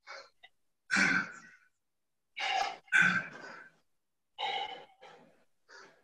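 A man's forceful exhalations while working a kettlebell: six short puffs of breath, one to two seconds apart, in time with the exercise.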